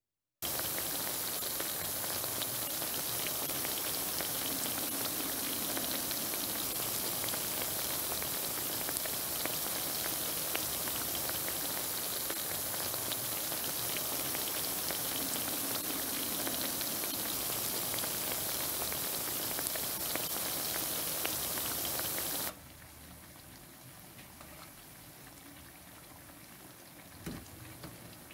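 Potato smileys deep-frying in hot oil in a pan: a dense, steady sizzle that starts suddenly as they go into the oil. About 22 seconds in it drops to a quieter sizzle, with a single soft knock near the end.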